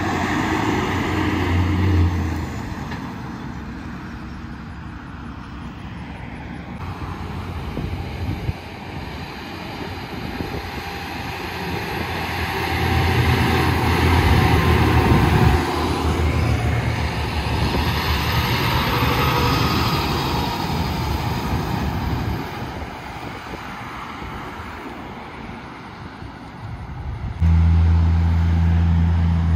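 Heavy trucks passing on a highway: a dump truck going by, then a multi-axle mobile crane carrier whose engine and tyre noise swells to a peak and fades. Near the end a louder low engine drone cuts in suddenly.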